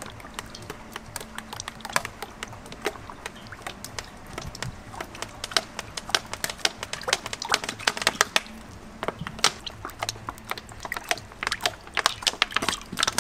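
Sunflower oil poured from a plastic bottle into a cast-iron kazan, heard as a run of irregular small clicks and crackles that grows denser near the end.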